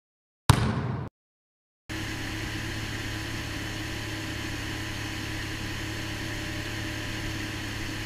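A sudden loud hit about half a second in that fades and then cuts off. After a short silence, a jet ski's engine is heard idling steadily: an even hum with a low drone.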